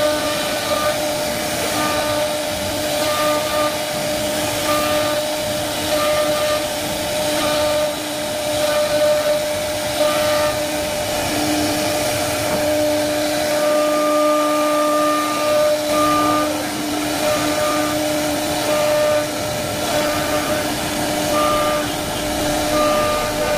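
CNC wood router's spindle running and cutting grooves into MDF board: a steady whine over a constant hiss, its higher tone coming and going as the bit works through the cuts.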